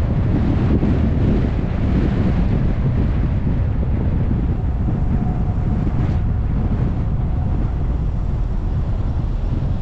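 Car driving: steady wind noise buffeting the camera microphone over the rumble of the road and engine, with a faint steady whine for a few seconds in the middle.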